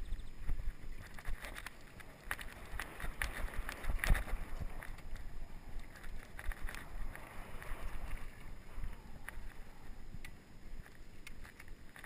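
Mountain bike rattling and knocking irregularly as it rides over a bumpy grass-and-dirt trail, with wind rumbling on the helmet-mounted microphone.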